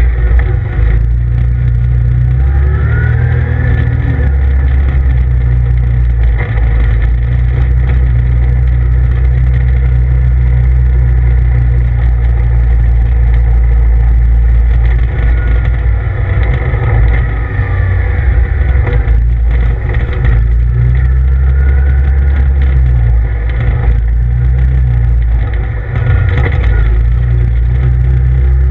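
CF Moto ZFORCE 800EX side-by-side driving over a rough dirt trail, heard from inside the cab: a heavy low rumble under an engine whine that rises and falls in pitch every few seconds as the throttle is worked.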